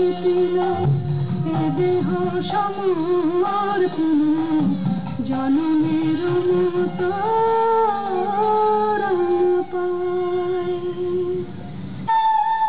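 Song with a woman's voice singing a melody of long, gliding notes over instrumental accompaniment; the music changes just before the end.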